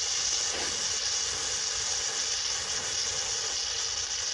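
Belt-driven centrifugal water pump at a tube well running, with a steady hiss of water spraying from a leak on its casing over the low, even rumble of the 23 hp Peter diesel engine driving it.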